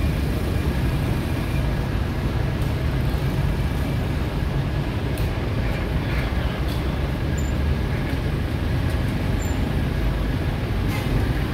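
Steady low rumble of a vehicle's engine and road noise while riding along a city street.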